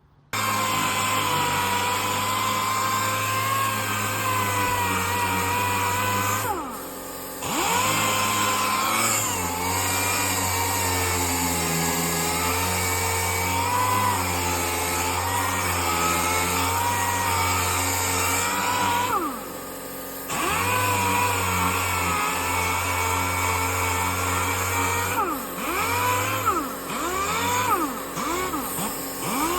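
Cordless power sander running as it sands paint off a fibreglass boat hull, a steady whine that wavers in pitch under load. It starts abruptly and eases off briefly twice.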